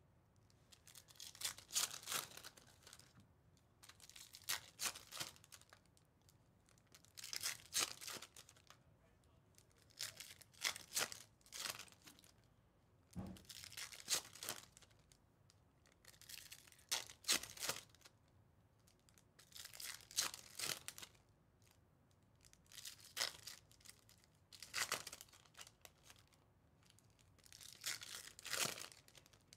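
Foil trading-card pack wrappers being torn open and crinkled, one pack after another, about every two to three seconds.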